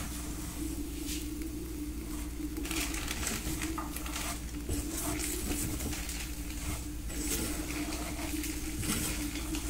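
Farofa of toasted cassava flour being stirred and scraped around a hot pan with some sizzling, in irregular strokes over a steady low hum.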